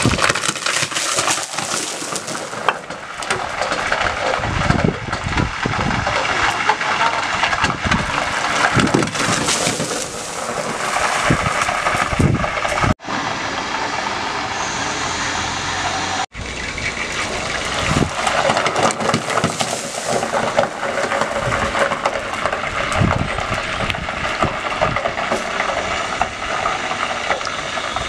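Hot oil sizzling and spattering violently with beer in it: a loud, continuous crackling hiss full of small pops. It drops out briefly twice near the middle.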